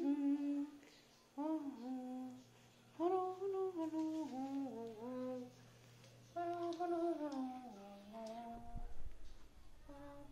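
A person humming a short tune in four phrases with short pauses between them, the notes stepping down in pitch within each phrase. A low rumble comes in near the end.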